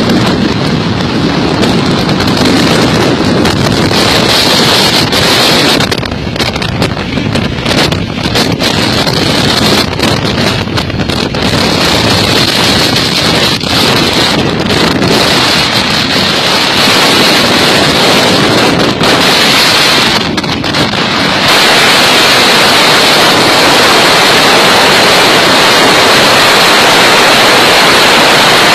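Wind rushing over the microphone of a moving vehicle, with road noise from traffic at speed. It grows louder and steadier about two-thirds of the way through.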